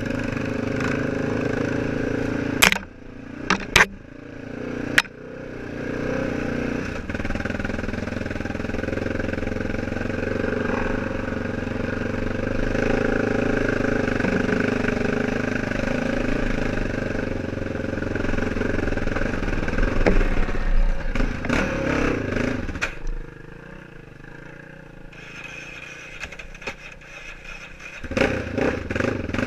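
ATV engine running under throttle on a rough dirt trail. A few seconds in the throttle is cut briefly and a few sharp knocks come through. Near the end the engine runs low and quiet for several seconds, then picks up again.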